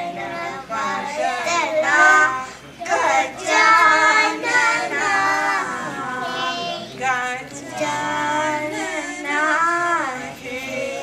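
Two young girls singing a devotional song to Ganesha together into a microphone, in a continuous, wavering melody.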